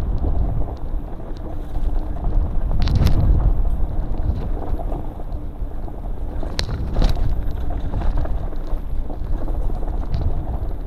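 Mountain bike descending a rough dirt and rock trail: a continuous rumble of tyres over the ground and wind on the microphone, with sharp clicks and rattles from the bike about three seconds in and again twice around seven seconds.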